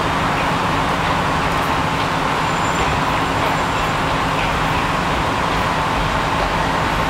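Guideway bus's diesel engine running steadily, a constant drone under steady traffic noise.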